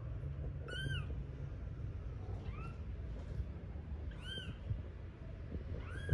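A newborn kitten mewing: four short, high-pitched cries, each rising and falling in pitch, about every one and a half to two seconds. These are the distress cries of a very young kitten separated from its mother. A brief sharp knock comes right at the end.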